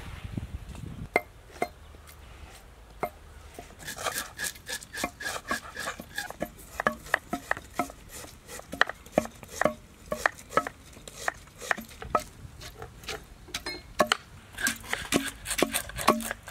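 A knife chopping onion: sharp chops at an uneven pace, sparse at first and coming thick and fast from about four seconds in.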